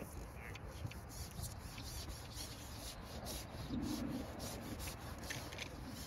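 A fishing pole being drawn back through the hands, with a series of short scraping rubs as its sections slide against hands and clothing.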